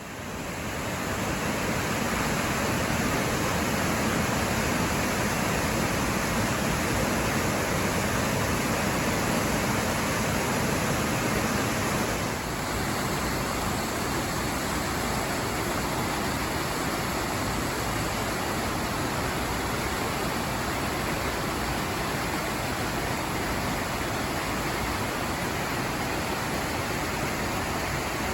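Steady rushing of flowing water, fading in over the first second or two and dropping a little about twelve seconds in.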